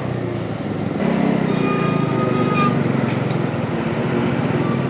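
Bajaj Dominar 400's single-cylinder engine running at low speed in crawling traffic, with a steady, even pulse.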